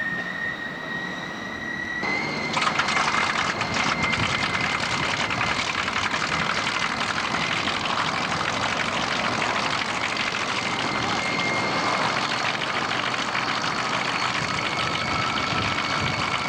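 Aircraft engine running: first a steady high whine that rises slightly, then a much louder, rougher noise from about two seconds in that holds steady.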